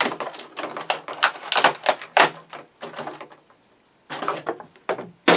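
Rapid light clicking and clattering of thin plastic: quadcopter propeller guards being pulled out of a moulded plastic packaging tray and handled. A short lull about three seconds in, then more rattling near the end.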